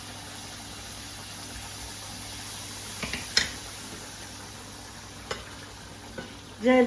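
Minced beef sizzling steadily as it fries in a pan, with a couple of short clicks about three seconds in and one more near the end, as it is stirred.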